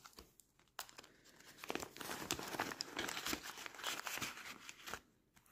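Clear plastic binder sleeves and paper euro banknotes crinkling and rustling as hands work notes in and out of the pockets of a ring-binder budget planner, starting about a second and a half in and stopping just before the end, with a single click shortly before.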